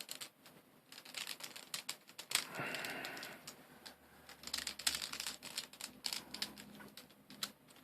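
Small plastic V-Cube 7 puzzle pieces clicking and clacking irregularly as they are handled and fitted together, with a short scrape about two and a half seconds in.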